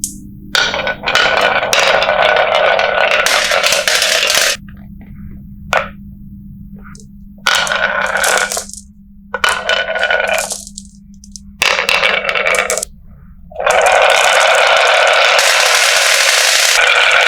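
Marbles rolling and clattering down a wooden HABA marble run, in spells of dense rattling broken by short gaps; in the last few seconds the clatter runs on without a break.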